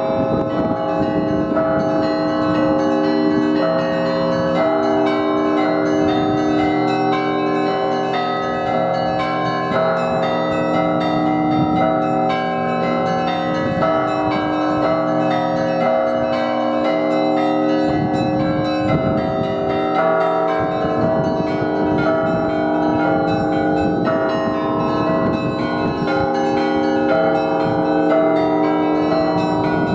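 Russian Orthodox monastery bells rung together in a continuous peal: many bells of different pitches struck over and over, their tones ringing on and overlapping at an even loudness.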